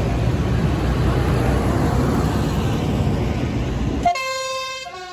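Tractors driving close past with a heavy, steady engine and tyre rumble. About four seconds in, the rumble cuts off abruptly and a vehicle horn toots a short run of notes.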